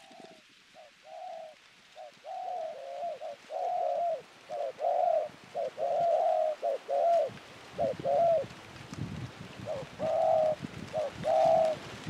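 Spotted doves cooing over and over: short, arched coos in quick runs of two or three, close and loud.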